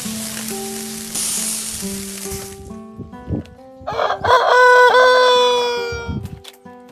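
Chicken skewers sizzling on a charcoal grill, a hiss that cuts off about two and a half seconds in. A rooster then crows once, about two seconds long and trailing off at the end, over soft background music.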